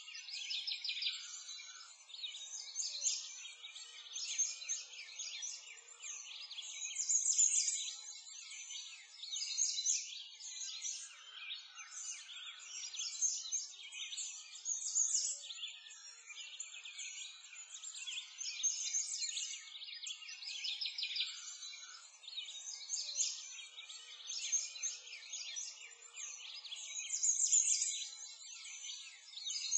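A continuous chorus of small songbirds chirping and trilling, dense and overlapping, with no low sounds under it.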